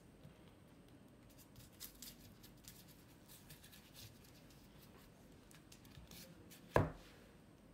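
Faint scratching and light tapping of a paintbrush and hands at work, then a single thud near the end as the canvas is set back down on the table.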